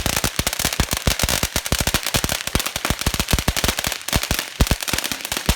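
Consumer fireworks crackling: a rapid, dense string of sharp pops, many a second, going on without a break.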